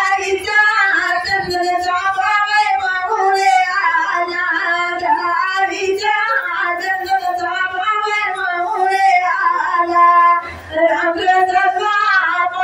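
A woman singing a song, her voice carrying on in long bending lines with a brief pause about ten and a half seconds in.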